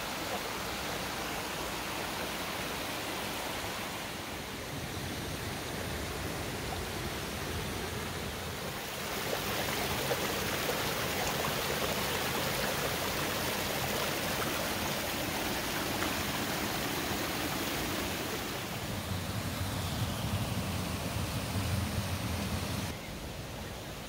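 Shallow rocky creek running over small cascades: a steady rush of water, louder from about nine seconds in, falling away suddenly near the end.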